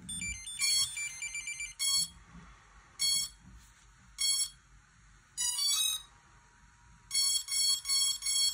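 Electronic beeps and short tunes from a multicopter's electronics powering up: a quick stepped tune first, then single beeps about once a second, a fast rising run of tones around the middle, and four quick beeps near the end.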